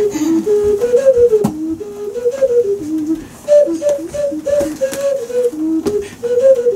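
A bouncy tune whistled in quick, stepped notes, with a few light clicks among them.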